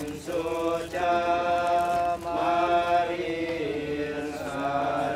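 Buddhist funeral chanting by a group of voices in unison, on long held notes with short breaks between phrases.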